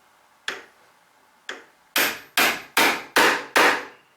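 A half-inch bevel edge chisel is struck with a hammer to chop a mortise in wood: two light taps to set the chisel, then five hard blows in quick succession, each a sharp wooden knock.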